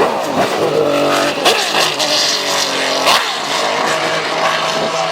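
Racing car engines running hard on track, their pitch rising and falling sharply several times with revving and gear changes as the cars go by.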